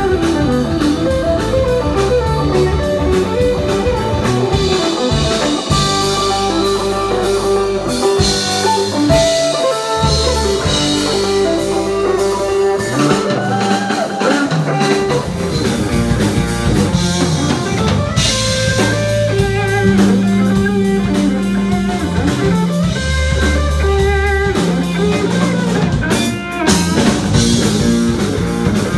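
Live rock-blues band playing, led by electric guitar over bass guitar and drum kit, the guitar running quick melodic lines.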